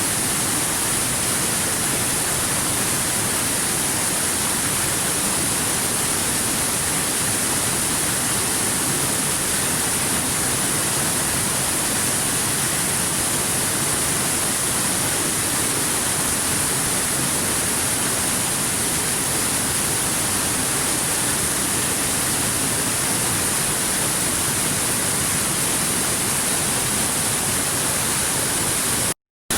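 Stream water rushing over rocks in a steady, hissing wash. It cuts out completely for a fraction of a second near the end.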